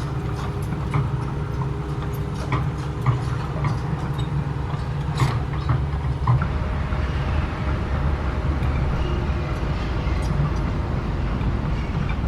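Excavator's diesel engine running steadily under work, with scattered sharp knocks and clanks over it. The engine note shifts lower about halfway through.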